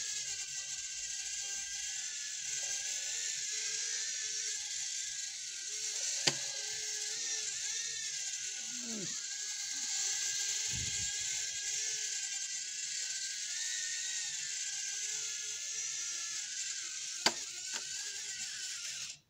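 Small toy drone's propellers and motors whirring steadily, the whine wavering up and down in pitch as the motors change speed, with two sharp clicks; the sound cuts off suddenly at the end.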